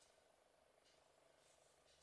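Near silence: faint steady background hiss.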